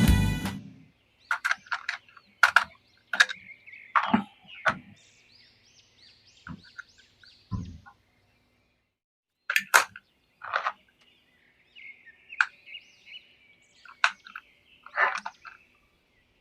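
Irregular plastic clicks, taps and faint squeaks from a toy action figure and its packaging being handled, a dozen or so separate knocks spread unevenly with short gaps between.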